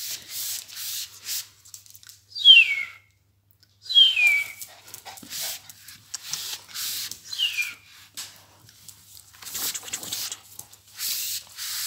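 Lhasa Apso whimpering: three short, high whines, each falling in pitch, with short bursts of noise between them.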